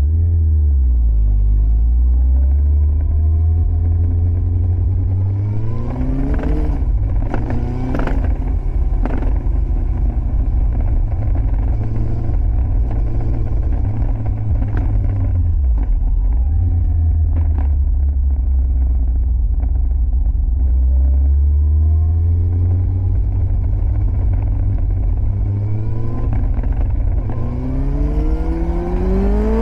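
Yamaha FZS1000 Fazer's carbureted inline-four through a Scorpion exhaust, under way. The engine note climbs about six seconds in and is followed by several sharp exhaust pops as the throttle closes. It then runs steadily, dips briefly, and climbs again near the end.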